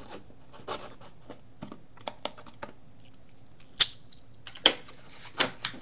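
A knife cutting through the sealing sticker on a cardboard trading-card box, heard as scattered small clicks and taps of blade and cardboard. The sharpest snaps come about four seconds in and twice more near the end.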